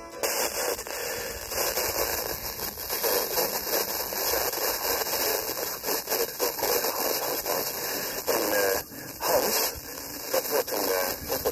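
FM radio static from a TEF6686 receiver tuned to a weak, distant station: a steady hiss, with faint fragments of a voice breaking through from about eight seconds in.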